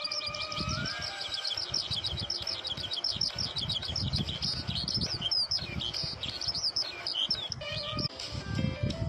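Small bird chirping rapidly in a fast run of repeated high chirps, breaking into more varied calls about halfway through, over background music.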